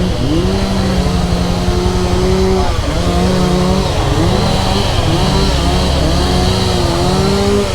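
Yamaha R15's single-cylinder engine running while the bike is ridden. The engine note holds steady and then dips and climbs back several times, as with throttle changes or gear shifts.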